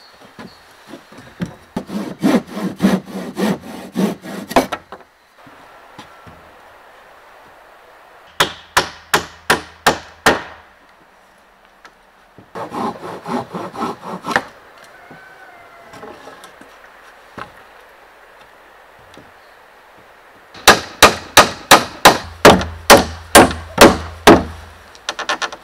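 Handsaw cutting through a wooden board in quick rasping strokes, in two short bursts, alternating with a hammer driving nails into the wooden frame in runs of sharp, evenly spaced blows, about three a second. The last run of hammer blows, near the end, is the loudest.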